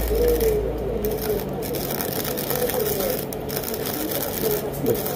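Hand-twisted plastic sesame grinder crushing sesame seeds, a steady grainy grinding rattle.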